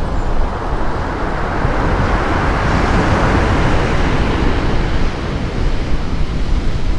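Sea waves breaking, one swelling to a hissing crash about three seconds in and then washing away, over a steady low rumble of wind on the microphone.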